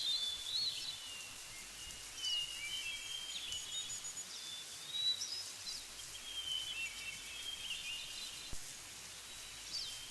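Birdsong: high whistled notes and quick glides, in phrases that come back every two to three seconds over a steady faint background hiss.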